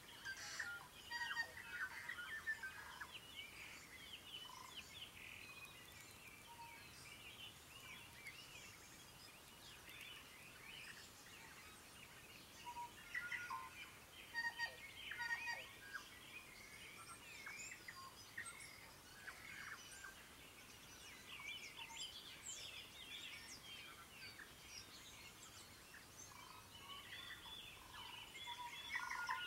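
Morning dawn chorus of many songbirds: a dense mix of chirps, whistles and trills from several birds at once. It swells into busier bursts of song every several seconds.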